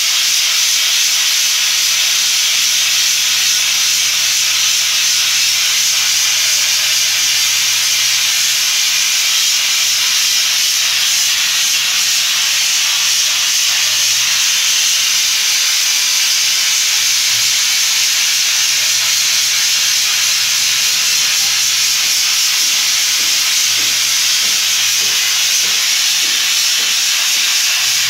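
Compressed-air spray gun hissing steadily and without a break as it sprays chrome-effect coating.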